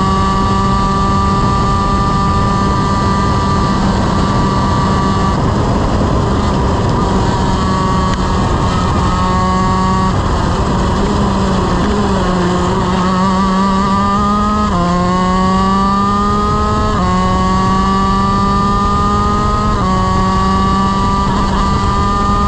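Shifter kart's Honda CR125 two-stroke engine running hard at high revs. Around the middle the pitch sags and wavers as the kart slows, then it climbs again through the gears, with a sharp drop in pitch at each of three upshifts.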